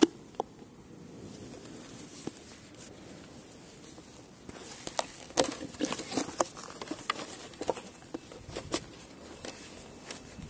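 Irregular light clicks and rustling, sparse at first and much busier from about halfway through: handling noise and steps as a phone is carried while filming.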